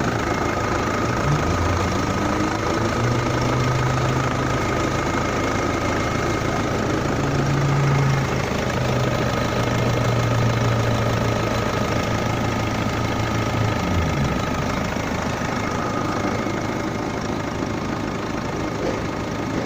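Hyundai Santa Fe's 2.0 CRDi D4EA four-cylinder common-rail turbodiesel running at a steady idle.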